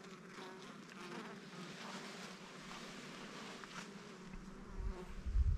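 Honeybees buzzing at an open hive, a steady, fairly faint hum. A low rumble comes in near the end.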